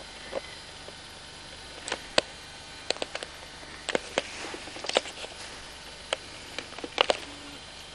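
Handling noise from a handheld camcorder: scattered light clicks and knocks, thickest in the middle and with a sharp pair near the end, over a steady hiss.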